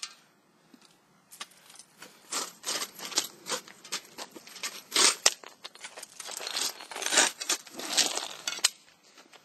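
Remains of a blown 4x6 car door speaker handled by hand: irregular crinkling, tearing and crackling of the burnt cone debris, with scattered sharp clicks of the metal parts, starting about a second and a half in.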